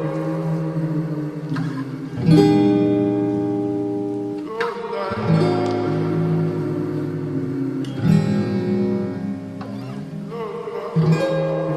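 Slowed-down lo-fi hip-hop music: a guitar plays sustained chords, changing about every two to three seconds, with no vocals.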